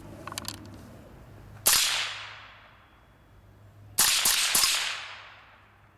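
Suppressed AR-57 rifle in 5.7x28 firing: a single shot, then about two seconds later three quick shots, each trailing off in a fading echo.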